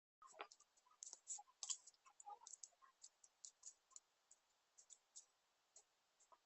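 Faint, irregular clicking and crackling of slime being played with: small sharp pops several times a second, unevenly spaced.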